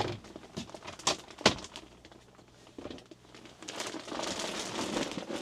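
Handling noise in a small room: a few sharp clicks about a second and a second and a half in, then rustling over the last couple of seconds.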